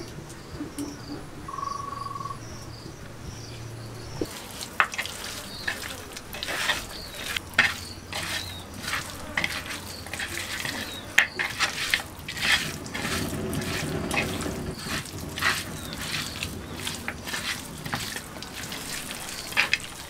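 Wet squelching and clicking of a hand kneading and mixing raw goonch catfish chunks in a shallow bowl, starting about four seconds in and going on in quick irregular bursts. An insect buzzes during the first few seconds.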